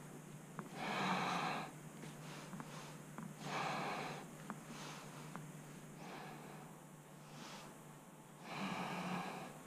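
A person breathing heavily through the nose close to the microphone: three loud breaths, a few seconds apart, over a low steady hum and a few faint ticks.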